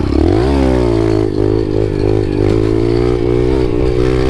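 Dirt bike engine, heard from on the bike, revving up sharply in the first half second and then pulling steadily with small rises and dips of throttle.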